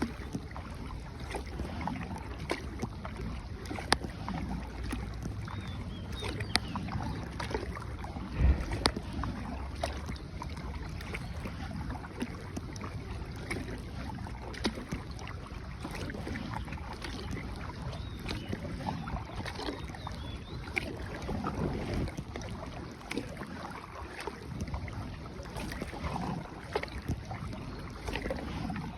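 Paddles stroking and splashing through the water as a small boat is paddled along, with a few sharp knocks along the way.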